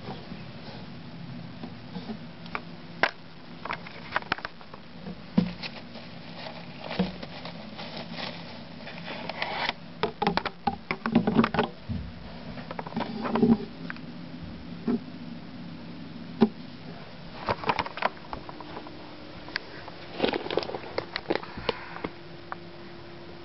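Irregular rustling and sharp clicks of wood-shaving bedding and a hollow plastic hideout being handled in a glass tank, in clusters with short gaps between. A faint steady low hum runs underneath.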